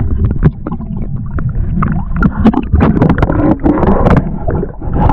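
Water sloshing and gurgling close to the microphone, with irregular knocks from handling.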